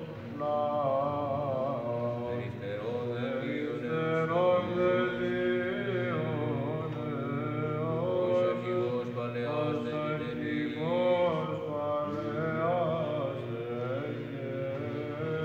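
Male monastic choir singing Byzantine chant at Vespers: a long, melismatic melodic line over a steady held low drone (the ison).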